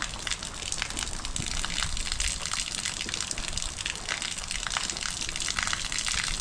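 Water rushing steadily, with many small crackles and splashes running through it.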